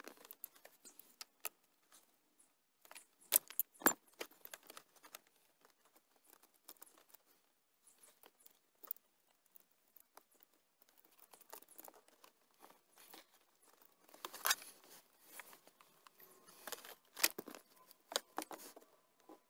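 Scattered small clicks, taps and light rattles of hands working a stripped wire and a blade fuse into a spare slot of a Jeep Cherokee's under-dash fuse panel, with louder clusters a few seconds in and again near the end.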